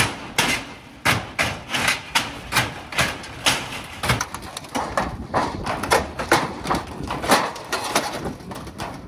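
Shovel blades and a pry bar jabbing under the ridge caps of a corrugated steel roof and prying them up: a quick, irregular series of sharp metal clanks and scrapes, about two a second.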